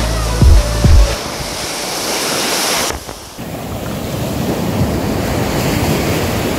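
Music with a heavy beat ends about a second in; after it, surf washing up on a sand beach, with wind rumbling on the microphone. The surf noise dips briefly about three seconds in, then runs on steadily.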